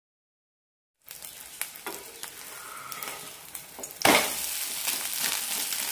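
Vermicelli egg omelette sizzling in oil in a nonstick pan, starting about a second in, with light clicks and scrapes of a wooden spatula. About four seconds in the omelette is flipped and the sizzle jumps suddenly louder as the uncooked side hits the hot oil.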